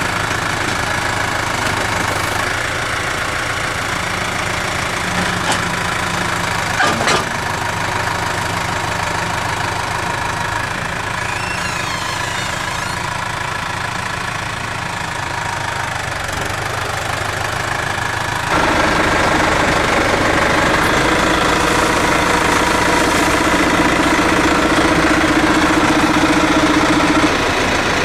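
Engine of the MOLE tree transplanter running steadily, with a short knock about a quarter of the way in. About two-thirds through it gets louder, with an added steady hum as the machine works, which drops away shortly before the end.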